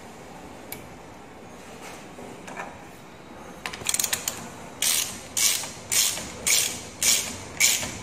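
Ratchet wrench clicking in regular strokes, a little under two a second, from about five seconds in, after a few scattered clicks. It is tightening the bolt of an insulation piercing cable connector.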